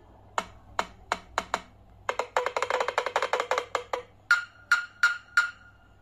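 Nothing Phone 1's speaker playing the Glyph Composer 'Weevil' sound set as its pads are tapped: short wood-block-like percussive hits. A fast roll of hits runs for about two seconds in the middle, then four higher-pitched hits follow.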